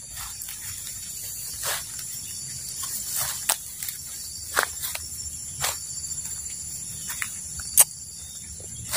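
Footsteps rustling and snapping through leaf litter and undergrowth, irregular sharp crackles with the loudest near the end, over a steady high-pitched insect drone.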